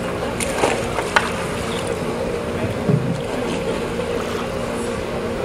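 A kayak roll in harbor water: a few brief splashes and paddle knocks over water noise and a steady low hum.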